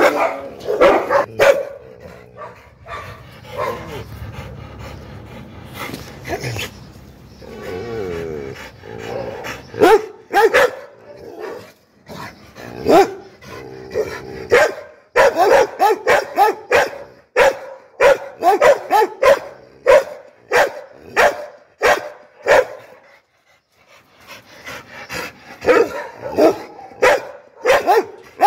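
Pit bull barking angrily in rapid, repeated barks, broken by a quieter lull of several seconds after the first barks and a short pause near the end.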